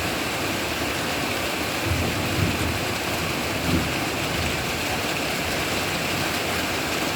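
Heavy rain falling steadily, an even hiss, with a few brief low thumps about two and nearly four seconds in.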